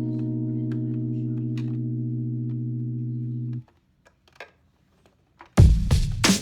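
Background music: a held electronic chord that stops about three and a half seconds in, a short near-silent gap with a few faint clicks, then loud electronic dance music with heavy drums starts near the end.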